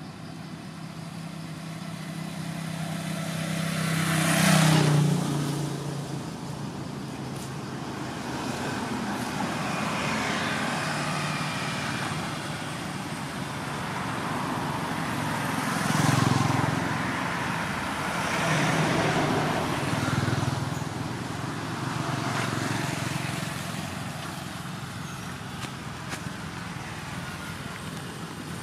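Motor vehicles passing one after another on a nearby road, each one's engine swelling and fading away, the loudest about four seconds in and several more near the middle.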